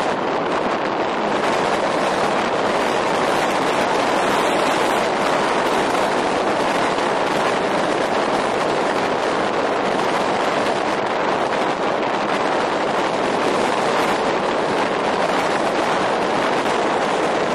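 Steady rushing noise of wind and wind-driven waves washing along a rocky shore, unchanging throughout.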